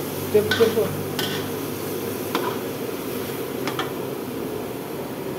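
Chicken curry pieces frying in a large steel kadai, with a spatula stirring and knocking against the pan a few times over a steady hiss.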